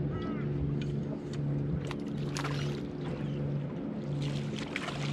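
A boat engine idles with a steady low hum that swells and dips about once a second, with a few sharp clicks in the first half. Near the end a splashy hiss rises as a hooked fish is brought to the surface at the landing net.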